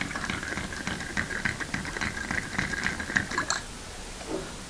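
Bar spoon stirring ice in a glass mixing glass: a quick, steady clinking rattle of ice cubes against the glass that stops about three and a half seconds in.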